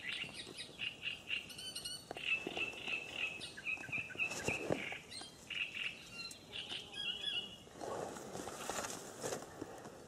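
Small songbirds chirping and singing, a continuous run of quick high chirps, with a few soft rustles.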